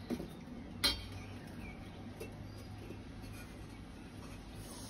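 One sharp metallic clink about a second in, from handling the upturned metal pot covering the baked pilaf; otherwise faint room noise with a low hum.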